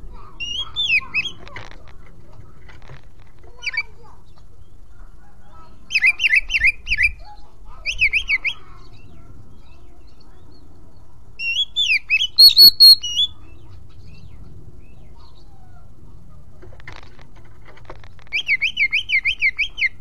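Oriental magpie-robin singing: short, loud phrases of rapid, repeated up-and-down whistled notes with pauses between them, the loudest phrase about twelve seconds in.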